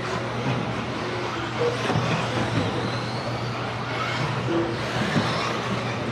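Electric RC buggies racing around an indoor carpet track: motor whine and tyre noise in an echoing hall, with a faint rising whine about midway, under a steady low hum.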